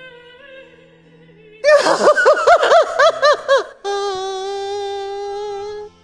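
Soft sustained music, then a loud woman's voice in rapid rising and falling wailing cries, followed by one long held note that stops shortly before the end.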